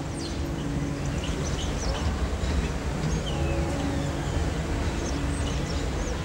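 Outdoor ambience of a steady low rumble with birds chirping in short high calls, under soft music of held notes that come and go in slow phrases.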